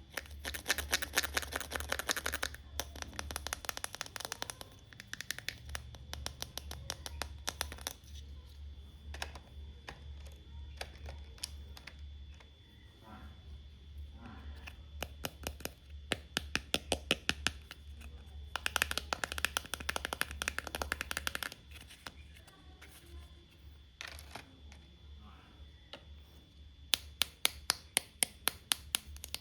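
Rapid runs of sharp clicking and tapping from plastic toy doctor-set pieces and packaging being handled, in three longer bursts with scattered clicks between, over a low steady hum.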